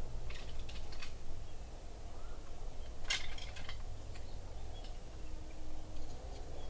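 Outdoor background: a steady low rumble with a few short, high chirps and clicks scattered through it, the sharpest about three seconds in.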